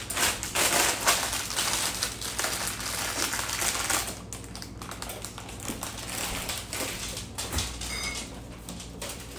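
Plastic bag of spinach crinkling and rustling as it is handled, dense and crackly for about four seconds, then softer with a few scattered clicks and knocks.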